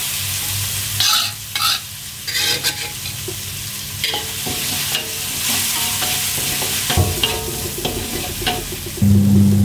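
Ground spice paste with bay leaves sizzling as it fries in oil in a wok, while a metal spatula stirs it and scrapes against the pan. A low steady hum comes in near the end.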